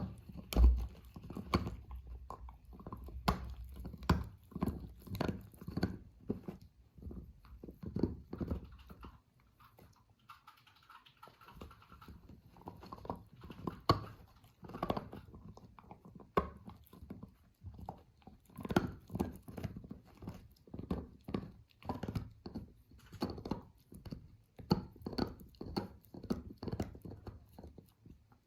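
Labradoodle chewing and gnawing on a chew toy: irregular sharp clicks and crunches, easing off briefly about ten seconds in.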